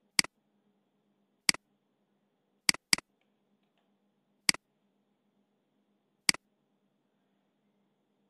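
Computer mouse buttons clicking six times at irregular intervals, two clicks in quick succession near the middle, as tools are picked and points placed in CAD software.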